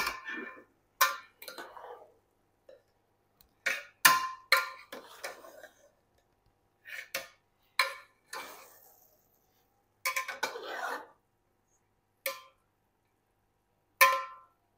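A metal ladle clinking against the side of a metal cooking pot and scraping through rice as the pulao is turned over. About a dozen separate ringing knocks come at an uneven pace.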